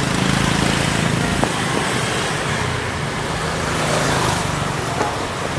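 Street traffic: motorbike engines running close by, with a low, steady engine drone over road noise.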